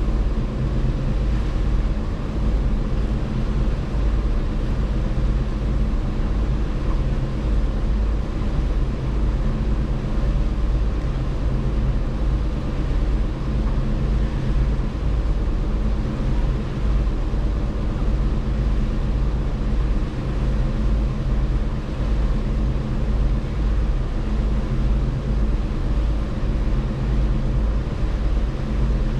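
Passenger ship's engine running with a steady low drone and several constant hum tones, over a fluttering low rumble, heard from the open deck while underway.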